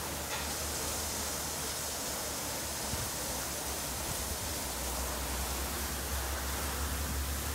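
Automatic tunnel car wash running: a steady hiss of water spray over a low machine hum, which grows stronger about five seconds in.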